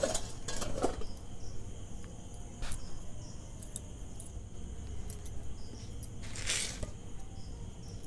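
Faint handling sounds of roti making: a few light clicks and taps of a steel bowl and a steel tiffin-box lid on a stone rolling board, and one soft rustle about six and a half seconds in, over a low steady hum.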